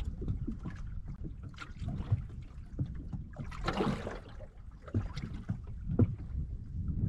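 Water slapping and sloshing against the hull of a small fishing boat rocking on a choppy sea, with wind buffeting the microphone. There are irregular knocks throughout and a louder splash about four seconds in.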